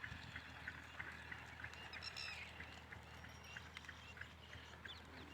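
Faint animal calls: short high chirps repeating a few times a second, with one longer call about two seconds in.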